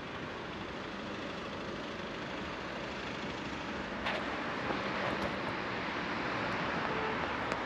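City street traffic, a steady rush of passing vehicles that grows louder about four seconds in, with a sharp click at that point.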